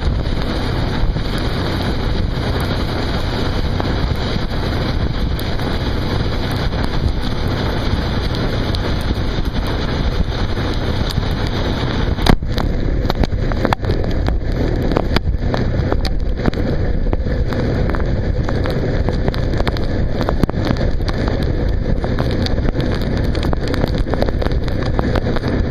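Bayliner runabout's MerCruiser sterndrive running steadily underway, its low hum mostly buried under heavy wind buffeting on the microphone and rushing water. A single sharp knock comes about twelve seconds in.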